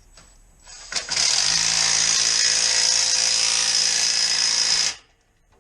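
Impact wrench hammering for about four seconds as it drives a bolt on the exhaust clamp collar tight, then stopping suddenly.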